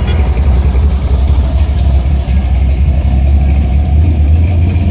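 Loud car engine running at idle with a deep, steady rumble.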